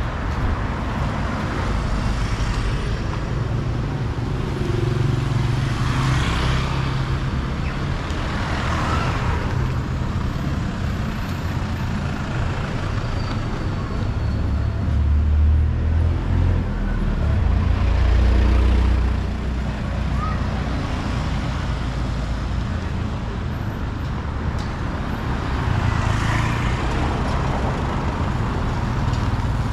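Town street traffic: motorbikes and pickup trucks passing, their engines and tyres swelling and fading over a steady low rumble, which is loudest about halfway through.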